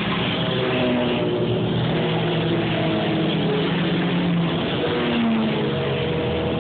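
Several sport motorcycles running at speed and passing one after another, their engine notes overlapping and sliding up and down in pitch as each goes by.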